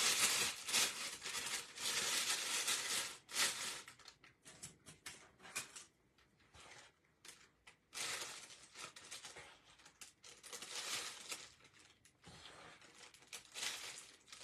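Plastic frosting bag crinkling and rustling as it is opened out and handled, loud for the first few seconds, then in short patches, and loud again for a few seconds past the middle.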